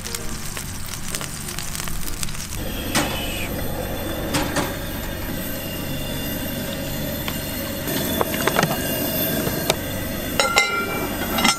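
Spare ribs sizzling in a Dutch oven on a Coleman 413H two-burner camp stove, with a few sharp metal clinks near the end as the lid is set on the pot.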